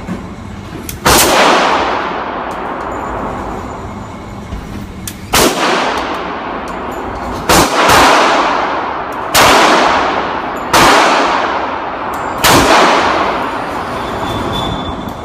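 Six single pistol shots from a Heckler & Koch Mark 23 in .45 ACP, fired at uneven gaps of about one and a half to four seconds. Each shot rings on in a long echo off the concrete walls of an indoor range.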